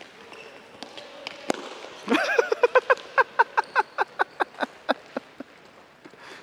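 A child laughing in a quick run of short 'ha' pulses, about five a second, for some three seconds starting about two seconds in. Scattered sharp taps of footballs being kicked and feet on the hard court floor run through it.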